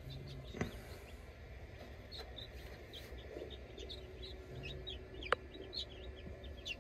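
Newly hatched silkie and satin chicks peeping, many short high chirps overlapping. A sharp click comes about half a second in, and a louder one a little after five seconds.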